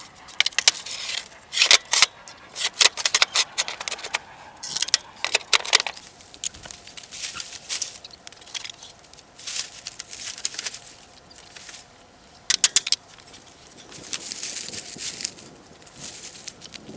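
Irregular clattering and rattling of hard objects being handled, in clusters of sharp clicks with short quieter pauses.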